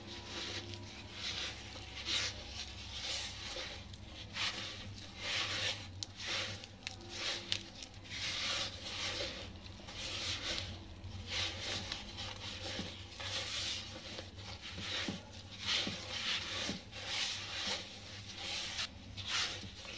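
A hand rubbing softened butter and granulated sugar against the bottom of a clay dish, creaming them together. The sugar crystals give a gritty scraping in repeated, uneven strokes about once a second.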